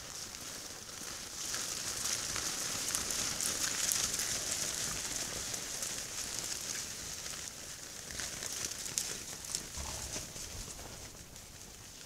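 A herd of wild boar foraging and moving about: a steady crackling and rustling of hooves and snouts working the ground, with many small clicks. It grows louder over the first few seconds and fades toward the end as the animals move off.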